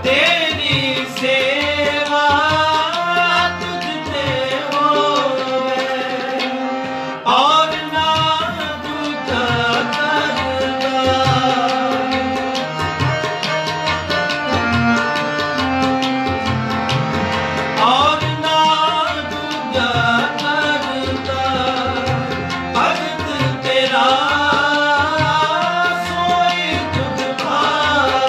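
Sikh kirtan: men singing a devotional hymn in long, bending phrases over harmoniums, with a steady tabla rhythm underneath.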